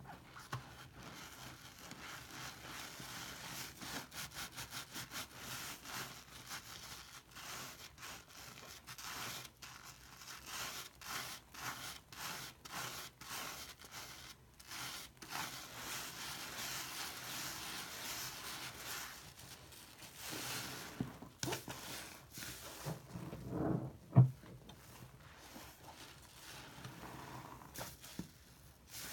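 A soap-lathered sponge being squeezed, scrubbed and wrung by hand: wet squishing and crackling foam, with runs of quick squeezes. About five seconds before the end there is one sharp, much louder knock.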